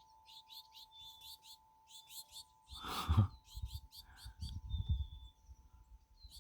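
Small songbirds chirping in quick, short series of high calls, which the watcher takes for squabbling or a youngster begging a parent to feed it. A brief rushing noise comes about three seconds in.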